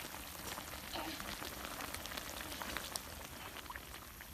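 Clams and mussels simmering in a wok on a portable gas stove: many small crackles and pops over a steady hiss.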